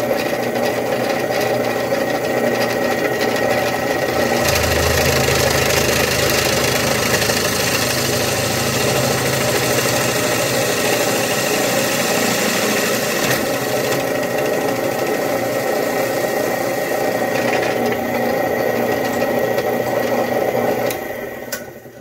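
Old drill press running, its twist bit cutting into the copper sleeve of a cigarette lighter, a steady motor hum with rattle. A deeper hum joins from about four to eleven seconds in, and the press cuts off just before the end.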